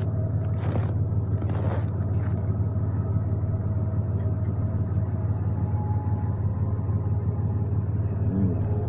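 A steady low rumbling drone coming from the sky, with faint held tones above it. It is the unexplained 'strange sound' that the recorder hears overhead.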